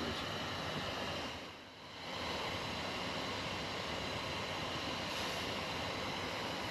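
Steady rumble and hiss of an off-road vehicle heard from inside the cabin, dipping briefly about two seconds in.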